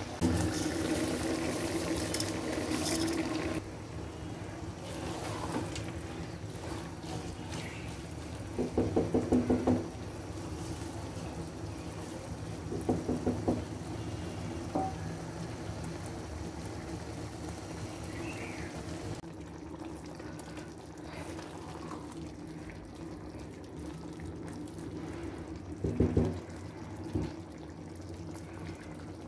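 Fried rice with vegetables cooking in a pan with liquid, giving a steady sizzling, bubbling noise that is louder for the first few seconds, over a steady low hum. A few short bursts of rapid clatter come from the pan, about nine, thirteen and twenty-six seconds in.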